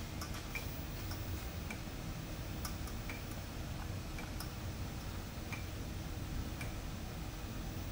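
Southwest Industries ProtoTrak K3 CNC knee mill running a program with the spindle off: the table and knee axis drives move with a quiet, steady low hum, and light ticks come at uneven intervals, about one or two a second.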